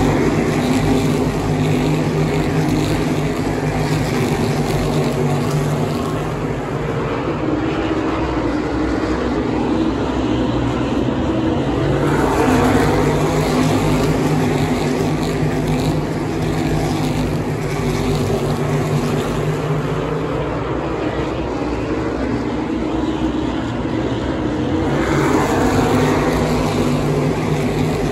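Asphalt modified race cars' V8 engines running as a pack lapping the oval, a continuous drone that swells each time they pass the grandstand, about three times.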